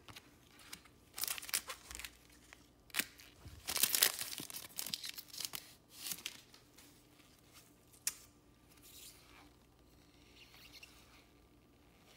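Wrapper of a 2021 Diamond Kings trading-card pack being torn open, in a few short tearing and crinkling rasps with the loudest about four seconds in. A single sharp click comes about eight seconds in, then faint rustling of the cards.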